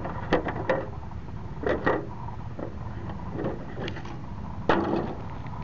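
Handling of a small RC car as its body is taken off: a scattering of short plastic clicks and knocks, about eight in all, the sharpest one near the end.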